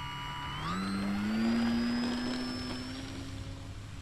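Electric motor and propeller of a radio-controlled airplane whining under throttle. Its pitch rises about half a second in and then holds steady.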